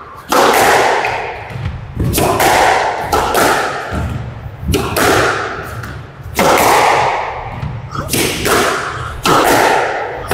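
Squash rally: sharp cracks of racket on ball and ball on the walls, about one a second, each ringing on in the enclosed court.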